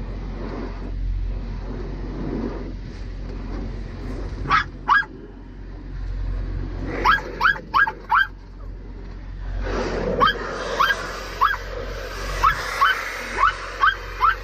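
A dog barking in short, high yips, twice about four and a half seconds in, four times around seven seconds, then in a quick run from about ten seconds on, over a steady low rumble.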